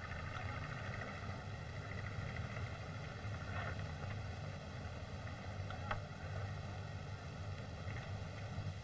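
Steady low rumble and hiss of an old optical film soundtrack, with two faint knocks about three and a half and six seconds in.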